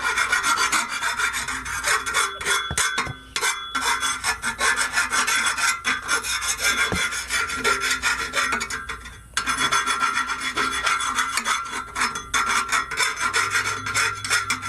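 Hand file scraping back and forth over the freshly cut end of a steel exhaust pipe, deburring the edge, in quick repeated strokes with two short pauses, about three and nine seconds in.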